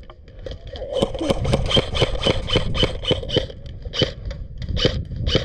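Airsoft electric rifle firing a rapid string of single shots, about four a second, each a sharp crack with a short high ring. A brief lull comes in the first second before the firing resumes.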